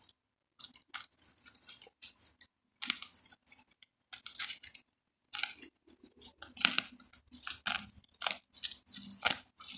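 Plastic packaging wrap crinkling and tearing in irregular crackles as it is worked open, with a few short pauses.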